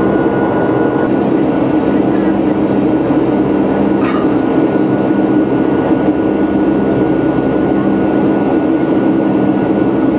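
Steady cabin drone inside an Airbus A321-211 climbing after takeoff: the roar of its CFM56 turbofans and rushing air, with a steady hum of several tones over it.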